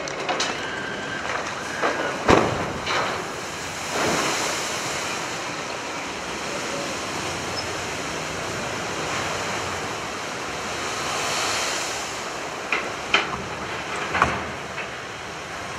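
Side launch of a cargo ship: the hull drops sideways off the slipway into a canal, and a great mass of water rushes and splashes, swelling and easing. Several sharp bangs cut through it, the loudest about two seconds in and a cluster near the end.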